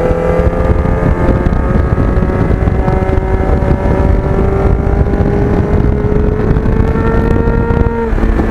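Kawasaki GPX750R Ninja's inline-four engine running at a steady cruise, its note sagging a little and then climbing back before dropping off near the end, with heavy wind rumble from riding.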